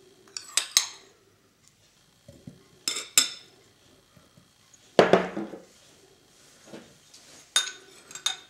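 A metal spoon clinking and scraping against a wine glass and a ceramic cup: short separate clinks a second or two apart, with one louder, duller knock about halfway through.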